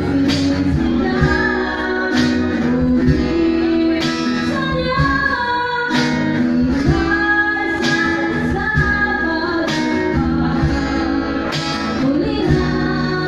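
Live acoustic band: a woman sings a ballad into a microphone over strummed acoustic guitar, with regular drum beats.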